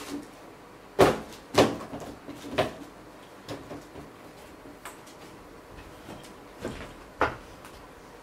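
Sneakers and a cardboard shoe box being handled and set down: a few sharp knocks, the loudest about a second in and just after, with lighter taps later.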